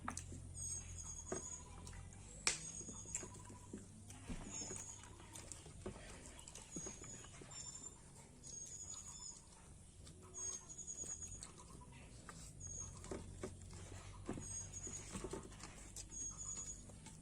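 Quiet eating sounds during a noodle-eating race: scattered small clicks and knocks, the loudest about two and a half seconds in, over a low steady hum. Short high chirps repeat every second or so.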